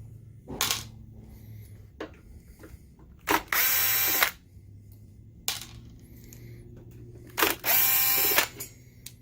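Cordless screw gun backing out small screws from a projector's metal plate: two short runs of motor whine, each about a second long and about four seconds apart, with a few light clicks in between as the bit is set on the next screw.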